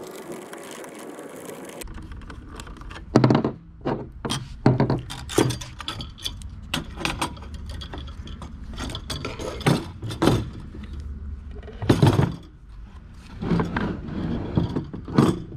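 Parts of a Sta-Rite Dura-Glas pool pump being taken apart by hand. The metal clamp band is unscrewed and lifted off, and the motor half is pulled from the plastic pump housing, giving irregular sharp clinks, scrapes and hard plastic knocks. A steady noise stops abruptly about two seconds in.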